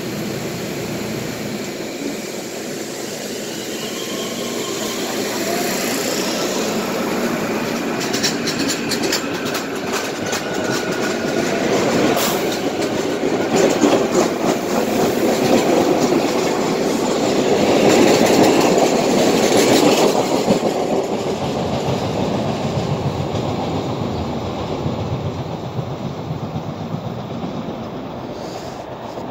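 Hyundai-Rotem Silverliner V electric multiple-unit commuter train pulling out of a station and passing close by. Its rumble builds and is loudest as the cars go past, with bursts of wheel clicks over the rail joints. Then it fades away as the train recedes.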